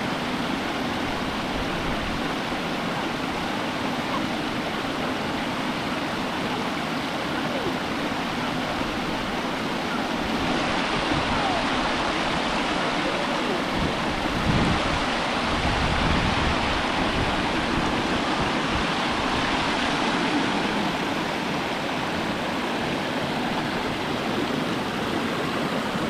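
Waterfall and stream water rushing steadily over rocks, growing louder for about ten seconds in the middle.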